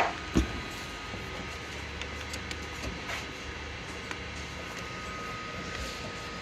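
Two sharp knocks about half a second apart, then faint small clicks and handling noise of parts being worked on over a steady background hum.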